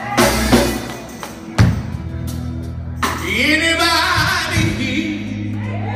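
Live gospel music from a male vocal group with band: steady bass tones and drum hits, with singing voices coming in about three seconds in.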